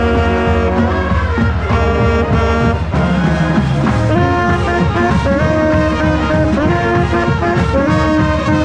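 College marching band playing loudly, mainly brass and saxophones, in a run of held, shifting chords, heard from inside the band.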